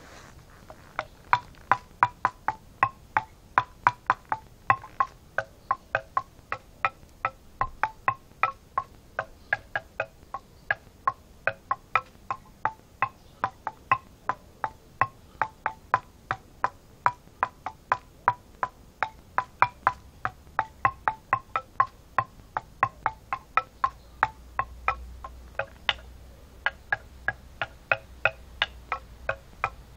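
A stick of laurel wood being knocked in a steady rhythm, about three hollow, pitched knocks a second, like a wood block.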